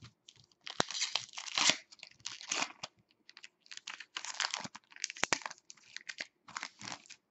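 Foil wrapper of a trading-card pack being torn open and crinkled by hand: a string of irregular rips and crinkles, with two sharp clicks, one about a second in and one a little past five seconds.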